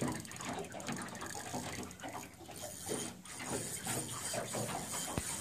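Spinning reel clicking and ratcheting steadily while under load from a large hooked sturgeon.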